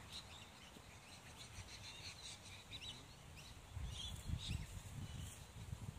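Small birds chirping and calling in the background, with a low gusting rumble of wind on the microphone from about halfway through.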